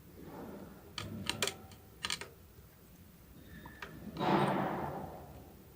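Sharp metallic clicks and taps from working on the underside of an industrial sewing machine, as a screw holding the feed dogs is tightened, followed about four seconds in by a longer scraping, sliding noise of the metal parts being handled.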